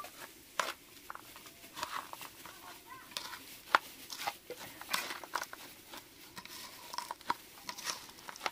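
Puffed rice being stirred and tossed on a metal plate: irregular dry rustling scrapes and clicks, with one sharper click a little before four seconds in.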